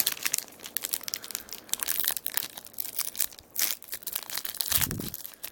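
A SkyBox basketball card pack's wrapper being torn open and crinkled by hand: irregular crackling and tearing.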